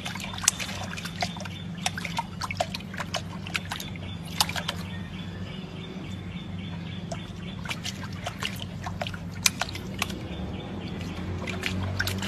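Water splashing and dripping in a stone basin as a puppy paws at it: short, irregular splashes over a steady low hum.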